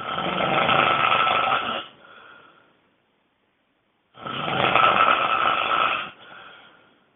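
A person snoring extremely loudly: two long snores of about two seconds each, about four seconds apart, each trailing off into a fainter sound.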